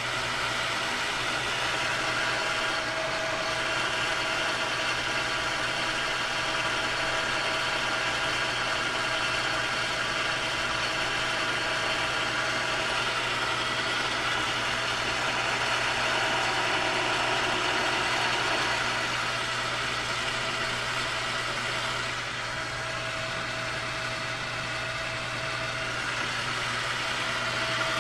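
Metal lathe running under a cut, turning down a steel bar with a carbide insert: a steady hum of motor and gearing with several steady tones and the hiss of the cut, easing slightly about three quarters of the way through.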